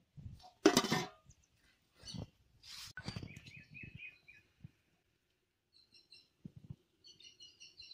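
Small birds chirping: a quick run of short falling notes, then clusters of high rapid chirps. A sharp clatter about a second in is the loudest sound, with a few softer knocks after it.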